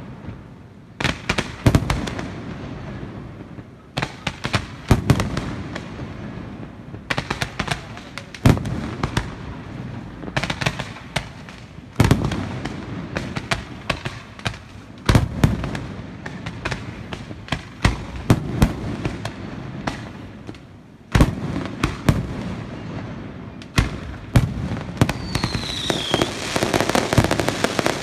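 Aerial fireworks display: salvos of sharp bangs in clusters every few seconds as shells and comets burst, with crackling in between. Two falling whistles come near the end.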